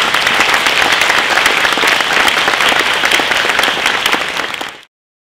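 Audience applauding: loud, dense clapping that cuts off suddenly near the end.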